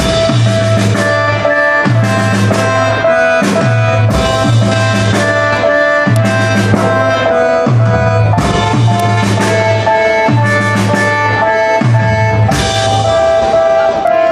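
Live rock band playing at concert volume: drum kit, guitars and a low bass figure that repeats about every one and a half to two seconds, under a steady held higher tone.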